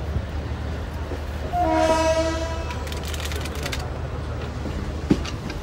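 Indian Railways locomotive horn sounding one blast of about a second, several notes together, over the steady rumble of a passenger train running along the track. A single sharp knock near the end.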